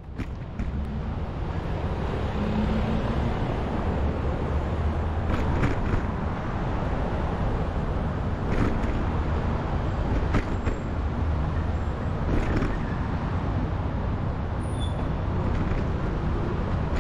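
Riding noise picked up by a camera on a moving bicycle on city streets: a steady low rumble with traffic around, and a few sharp knocks and rattles from the bike.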